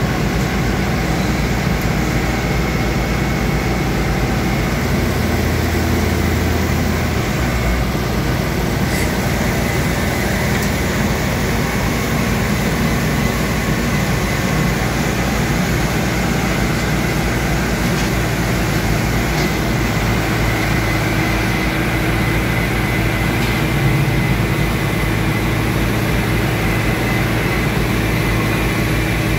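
Diesel engines of grab lorries running steadily to drive their hydraulic loader cranes while the grab buckets work, with a steady high whine over the engine hum, whose pitch shifts a few times.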